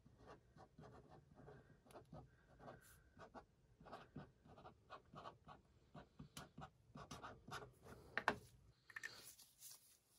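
Sharpie permanent marker writing on a plastic bottle lid: faint, irregular scratchy strokes, with a light knock a couple of seconds before the end.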